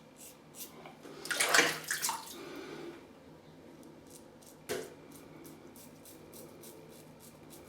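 Short scraping strokes of a Gillette Tech safety razor through lathered stubble, with a burst of splashing water about a second in and a single knock near five seconds.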